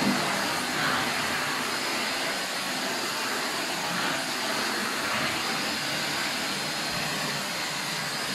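Deerma DX115C corded stick vacuum running, a steady rushing hiss with no break as its floor head is pushed over a wooden parquet floor.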